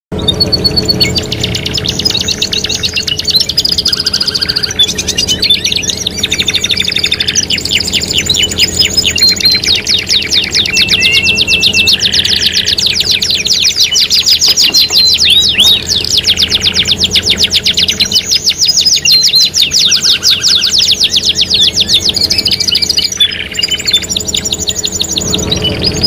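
Domestic canaries singing: long, fast rolling trills and chirped phrases following one another without a break, several songs overlapping.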